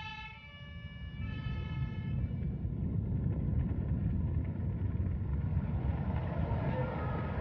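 Two-tone emergency-vehicle siren alternating between two pitches, fading out about two seconds in. A loud, steady low rumble rises under it and takes over for the rest.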